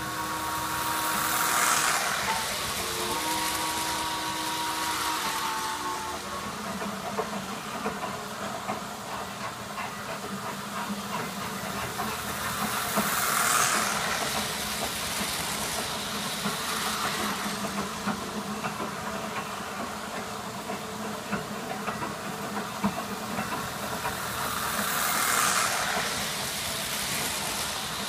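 Postwar Lionel O gauge toy steam train running on tinplate track: two held blasts of the locomotive's chord whistle, the second ending about six seconds in. Then the steady rumble of the motor and wheels, which swells three times as the train passes close by.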